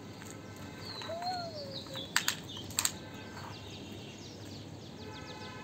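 Faint bird chirps, short whistled calls that slide up and down, over a steady background hiss. Two quick pairs of sharp clicks come near the middle.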